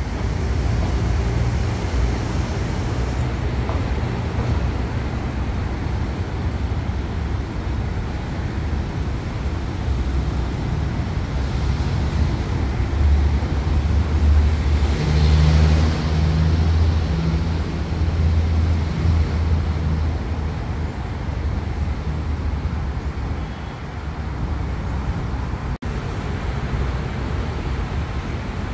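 Diesel-electric locomotive's engine running with a steady low rumble that grows louder for a few seconds around the middle.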